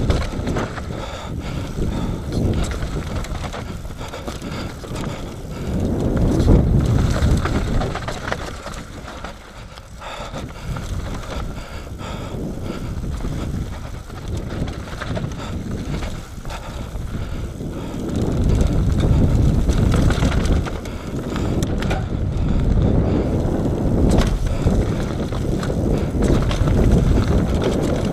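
Nukeproof Mega 275 enduro mountain bike descending a dry dirt trail: tyres rolling over dirt and stones, with a constant patter of small knocks and rattles from the bike. The ride gets rougher and louder about six seconds in and again over the last ten seconds.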